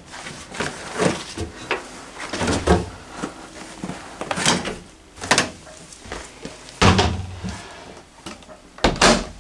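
Knocks and thumps of a Hoover Visiontech Infinity tumble dryer being loaded by hand and its door shut, with the loudest bangs about seven and nine seconds in.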